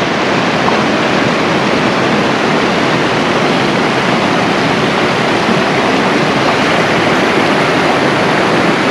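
A loud, steady rushing noise that does not change or break.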